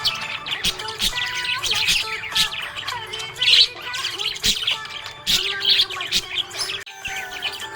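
Budgerigar chirping and warbling happily: a busy, unbroken stream of short chirps, squeaks and squawks.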